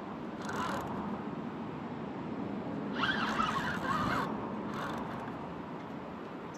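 Fishing reel's drag buzzing in short runs as a hooked carp pulls line against it: a brief burst about half a second in, a longer, louder one lasting over a second from about three seconds in, and a short one just after.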